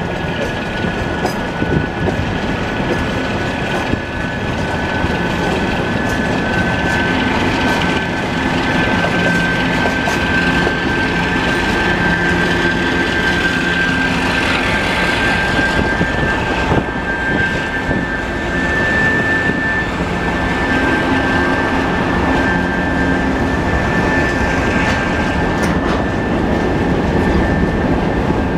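A 2TE116 twin-section diesel locomotive approaches and passes close by, its diesel engines running. A steady high whine carries through, and the freight train's wagons and tank cars follow, rolling over the rails.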